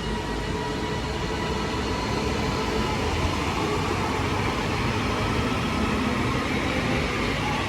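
Class 331 electric multiple-unit train running through the station, a steady rumble with a faint motor whine that rises and falls in pitch around the middle.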